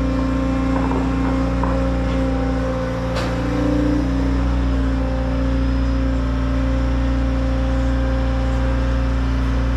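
Compact track loader's diesel engine running steadily as the machine creeps forward with a load on its pallet forks. A single sharp clank about three seconds in, and the engine pitch rises slightly just after.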